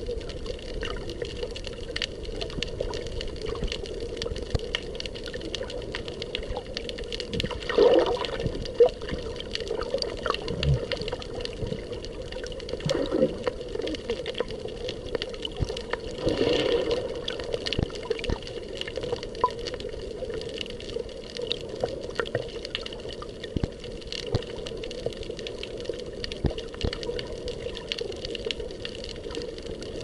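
Muffled underwater water noise heard through a submerged camera: a steady low rush with many small clicks and crackles, swelling louder about 8 seconds in and again about 16 seconds in.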